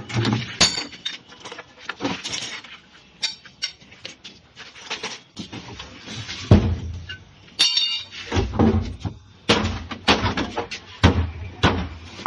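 Irregular metal knocks and clanks, with one brief ringing clang about two-thirds of the way through, as a scrap refrigerator's metal body is struck and pried apart.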